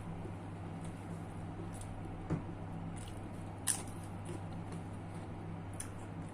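A person chewing food close to the microphone, soft wet mouth sounds with a few small clicks, the sharpest about three and a half seconds in, over a steady low hum.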